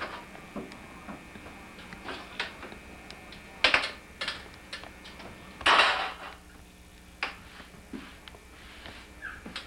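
Scattered clicks and knocks of wooden kitchen cabinet doors and items being handled on the shelves, with two louder bangs about three and a half and six seconds in.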